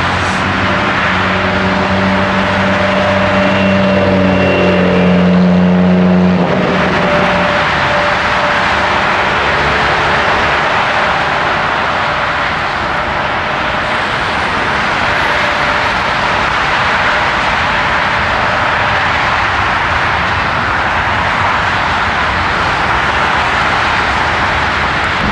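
Loud steady roar of jet airliners and road traffic close to the runway approach. A low pitched engine hum runs under it for the first six seconds and then stops abruptly.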